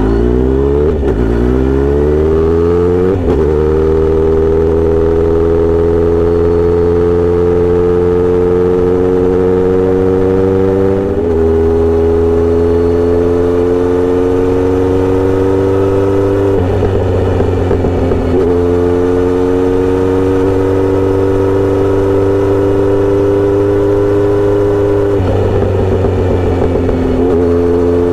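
Kawasaki Z900RS inline-four running through a Misty Kintaro short-pipe exhaust with a 70 mm L silencer while being ridden. The exhaust note rises quickly through the low gears in the first few seconds, then climbs slowly within each gear and drops back at each of several gear changes.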